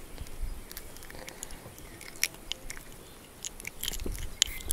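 Small irregular clicks and crunches as a hook is worked out of a perch's bony mouth by hand, more of them in the second half.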